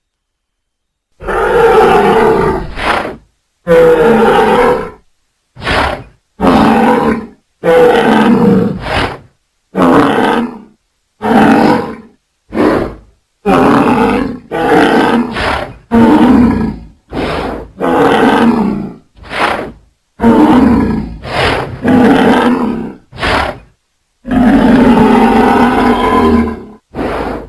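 A string of about twenty separate roar and growl sound effects for a cartoon Triceratops, mixed from animal and film-creature sounds. Each lasts half a second to two and a half seconds and is cut off sharply, with dead silence between them. They begin about a second in.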